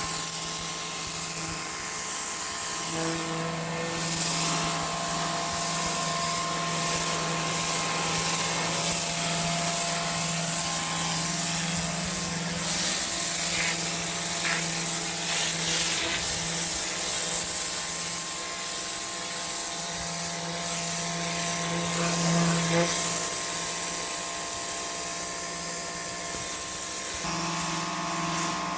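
Greenworks Pro 2300 PSI electric pressure washer running, a steady motor-and-pump hum under the hiss of the water jet, shifting in tone near the end.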